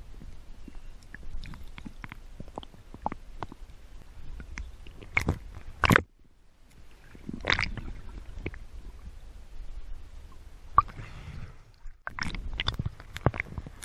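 Underwater noise heard through a GoPro's waterproof housing: a low rumble of moving water with many scattered clicks and several louder knocks, and a brief drop to near silence about halfway through.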